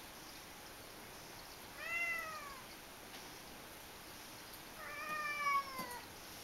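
A domestic cat meowing twice: a short falling meow about two seconds in, then a longer, louder meow that slides downward near the end.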